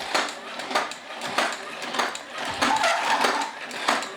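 Battery-powered 3D-printed walking toy robot: its small motor and plastic gearbox whir while its feet clack in an even rhythm, about three clacks every two seconds.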